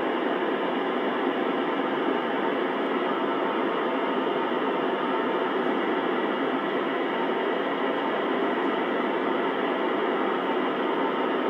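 Steady hiss of static from a VHF FM ham radio receiver tuned to the International Space Station's downlink, with no voice coming through.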